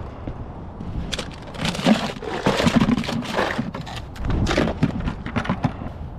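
Irregular rustling and scraping with short knocks, close to the microphone: handling noise as a caught porgy is dealt with over a plastic bucket.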